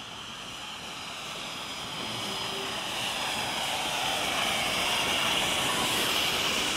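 Narrow-gauge K-36 2-8-2 steam locomotive No. 488 passing close by at slow speed with a freight train: a steady hissing noise of the engine and its running gear that grows louder as it draws level, easing a little as the tender goes by.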